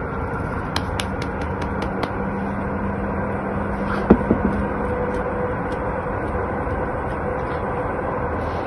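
Steady outdoor background noise with a faint hum, a few light ticks early on and a single sharp knock about four seconds in.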